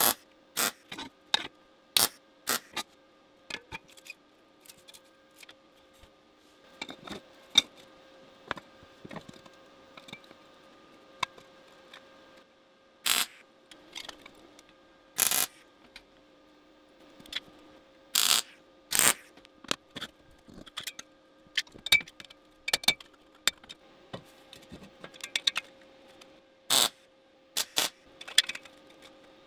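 Steel parts and hand tools being handled: many irregular sharp metallic clinks, taps and knocks, some louder than others, over a faint steady hum.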